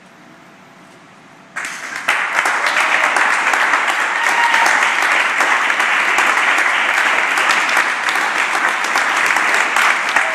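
A crowd applauding. The clapping breaks out suddenly about one and a half seconds in after a quiet start, then goes on loud and steady.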